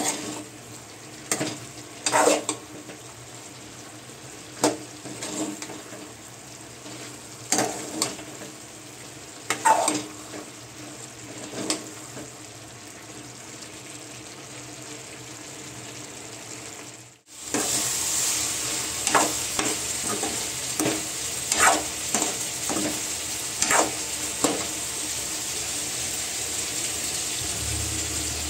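Food frying in a pan while a spoon stirs and scrapes it, with a sharp clink or scrape every second or two over a steady sizzle. About 17 seconds in the sound cuts briefly, then comes back with a louder, brighter sizzle and more stirring strokes.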